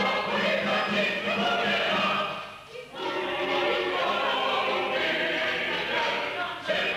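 Choir singing in sustained phrases, with a short pause between phrases about a third of the way through.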